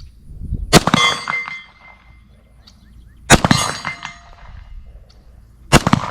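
Three 9mm pistol shots from a Glock 19 with carry-load ammunition, about two and a half seconds apart. Each shot is followed by a clanging ring, the sign of a hit on a steel target about 50 yards off.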